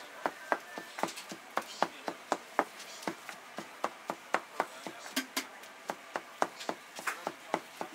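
Cleaver chopping meat and vegetables on a cutting board: rapid, even knocks at about four strokes a second.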